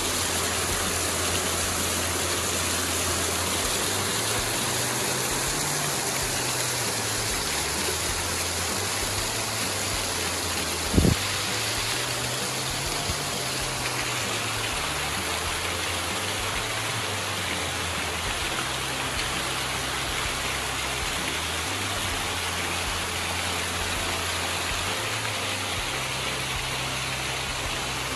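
Waterfall and creek water rushing steadily down rock cascades, with one brief thump about eleven seconds in.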